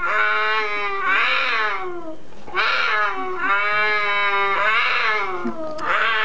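A mating pair of cougars yowling: a string of long, drawn-out caterwauls, one after another, each rising and then falling in pitch.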